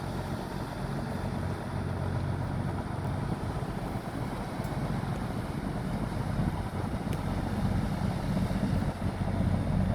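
A boat's engine running steadily, a low hum that grows a little louder toward the end, with strong wind buffeting the microphone.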